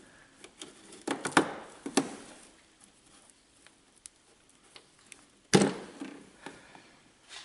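Scattered light clicks and rustles of hands working the rubber windshield washer hose off the wiper arm, with a few sharper clicks about one to two seconds in and a louder rustle about five and a half seconds in.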